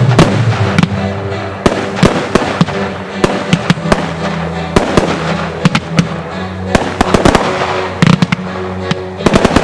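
Aerial fireworks bursting: an irregular series of sharp bangs and crackles, thickening into a rapid cluster near the end, over music with sustained low notes.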